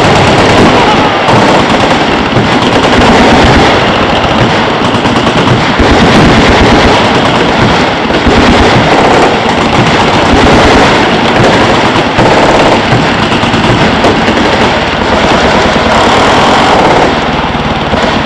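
Many machine guns firing at once, a dense and continuous barrage of overlapping automatic fire, very loud, easing slightly near the end.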